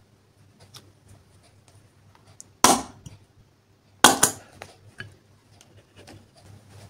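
Plastic squeeze bottle of chunky glitter gel being squeezed out onto clear slime: two loud, short squirting bursts, about two and a half and four seconds in, with small clicks and taps of the bottle being handled in between.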